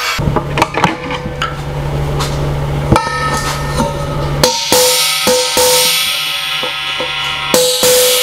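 Hammer blows on the end of a steel refrigerant gas cylinder, knocking at its valve collar. The blows come in an uneven string, closer together in the second half, and each leaves the hollow tank ringing with clear bell-like tones.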